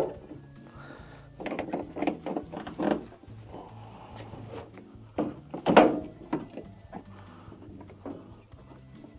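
Rubber water hoses being worked and pulled off the plastic inlet nozzles of an LG front-load washer's detergent dispenser housing: scattered rubbing, creaking and clattering handling noise, with the sharpest knock about six seconds in.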